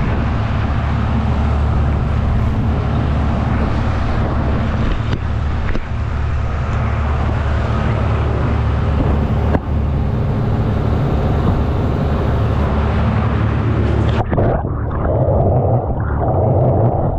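Boat engine running steadily, with water churning and splashing between the hulls of two outrigger boats. About fourteen seconds in the sound turns suddenly muffled, heard from under the water.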